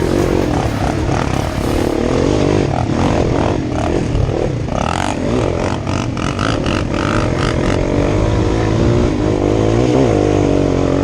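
Small off-road vehicle engine, freshly rebuilt with a Wiseco top end, running and revving as the machine is ridden. The pitch rises and falls with the throttle, and the sound cuts off suddenly at the end.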